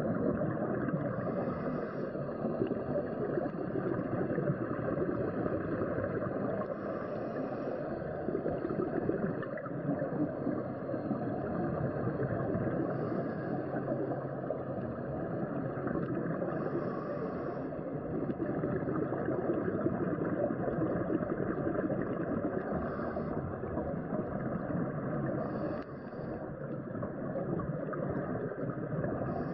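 Underwater ambience as heard through a diving camera's housing: a steady, muffled rush, with a scuba diver's exhaled bubbles gurgling up briefly about every five seconds.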